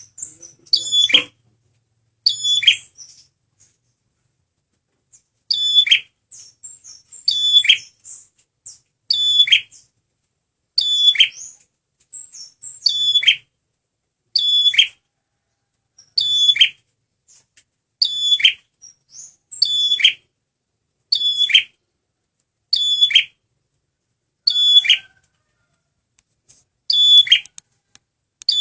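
Male prenjak merah (a small prinia-type songbird) singing vigorously, repeating the same short, high call over and over about every one and a half to two seconds. Each call is a quick burst of high notes that drops into a falling sweep, with one longer pause a few seconds in.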